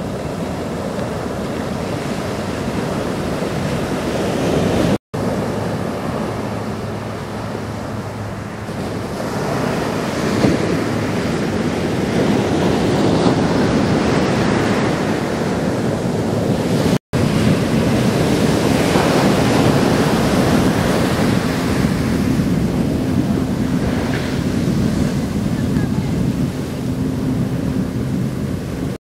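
Heavy shorebreak surf crashing and rushing up the beach, swelling and easing as waves break. The sound cuts out for an instant twice, about five seconds in and again about seventeen seconds in.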